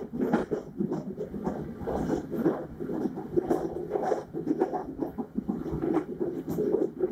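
Passenger train carriage running along the track, heard from its rear vestibule: a steady rumble of wheels on rail with a dense, irregular rattle and clatter of the carriage body and gangway fittings.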